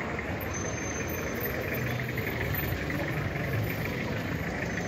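Busy city street ambience: a steady hum of traffic and vehicle engines, with a thin high hiss over it.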